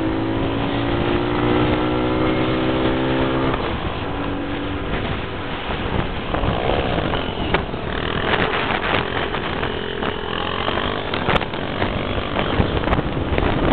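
Honda Pop 100 motorcycle's small single-cylinder four-stroke engine pulling with a slowly rising pitch for the first three and a half seconds. After that comes a steady rush of wind and road noise with occasional clicks.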